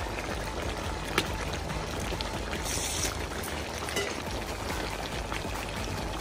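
Goat stew with potatoes and carrots bubbling in a large aluminium wok: a steady simmering hiss with scattered pops, the sharpest about a second in, and a brief louder hiss about three seconds in.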